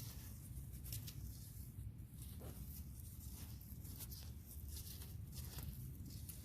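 Soft, irregular scrapes and rustles of digging in garden soil, over a steady low rumble.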